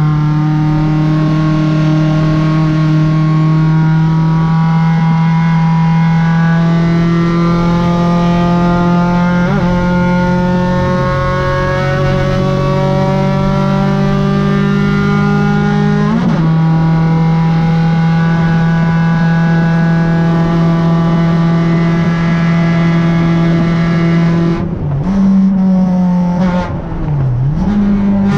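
Renault Clio 1.8 four-cylinder engine heard from inside the cabin, running loud and high-revving under full power, the note climbing slowly through each gear. It breaks sharply twice for quick gear changes, then falls and wavers near the end as the revs drop and blip.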